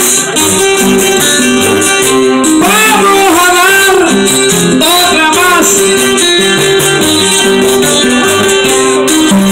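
Live Puerto Rican jíbaro trova music: a cuatro and acoustic guitar playing a steady accompaniment, with a voice singing a wavering phrase about three seconds in.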